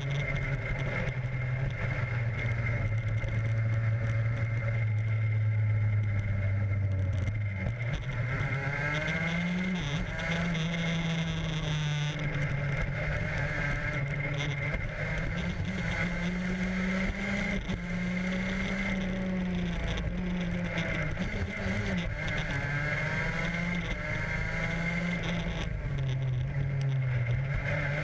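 Onboard engine of a small vehicle lapping a race track, recorded from the vehicle itself. It holds one pitch for the first few seconds, drops, then repeatedly rises and falls as it speeds up and slows for corners, with steady wind and road rush over it.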